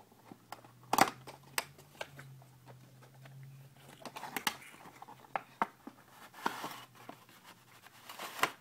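A cardboard box and its packaging being opened and handled by hand: scattered taps, snaps and rustles, the sharpest click about a second in.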